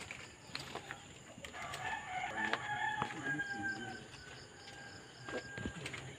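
A rooster crowing once: one long call that starts about a second and a half in and trails off slightly falling before the end, with scattered footsteps and small knocks around it.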